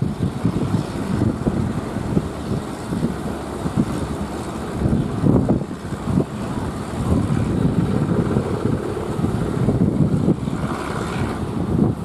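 Wind buffeting the microphone over the rush of heavy surf breaking on the shore, an uneven low rumble that swells and eases.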